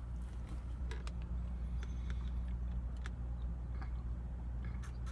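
Small eating noises, scattered short clicks and ticks, over a steady low hum.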